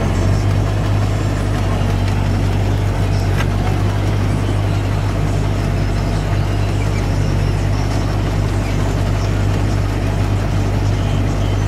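New Holland T7030 tractor's six-cylinder diesel engine running steadily, heard from inside the cab as a constant low drone.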